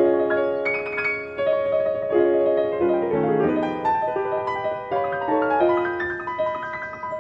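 Solo classical piano music: chords and quick runs of notes, growing quieter near the end.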